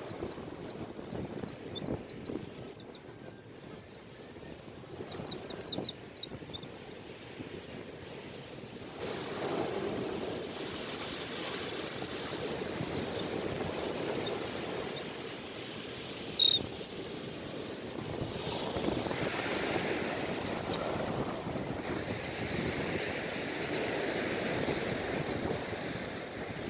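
A flock of gulls and terns calling: a long run of short high chirps, about three or four a second, over the steady wash of breaking surf. The surf grows louder about nine seconds in.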